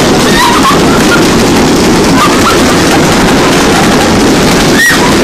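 Hail and heavy rain pounding down outside, a loud, steady, dense noise.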